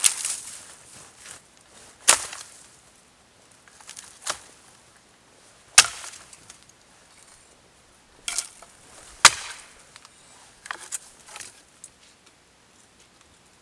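Hatchet chopping into dead branches: about six sharp strikes at irregular intervals a second or two apart, followed by a few lighter knocks near the end.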